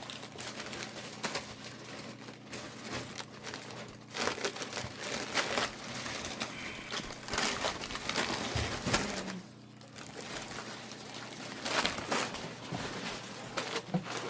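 Bags rustling and crinkling with irregular small knocks as items are packed into them.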